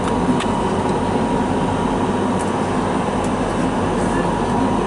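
Funicular railway car running steadily along its track, a continuous rumble with a few faint clicks.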